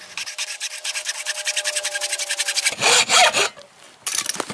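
Saw cutting through a length of 1-inch hose for a replacement PCV breather hose. Fast, rapid rasping strokes for about two and a half seconds, louder rasps around three seconds in, and a short rasp near the end.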